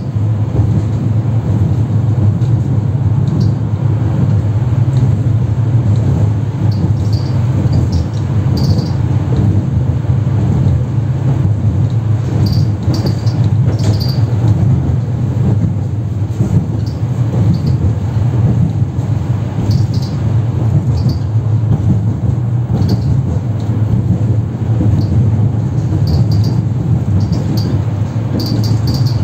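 Tram running, heard from inside the car: a loud, steady rumble of wheels on rails and the running gear, with short high-pitched squeaks now and then.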